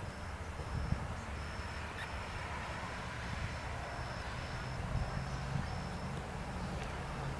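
Outdoor ambience: wind rumbling on the microphone, with a faint high-pitched chirp repeating about twice a second that stops about six seconds in. A low steady hum comes in near the end.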